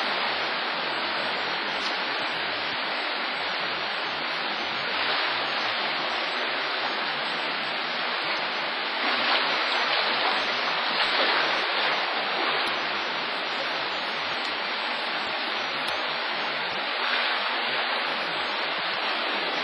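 A steady, even rushing hiss that swells slightly in level a few times, with no animal calls standing out.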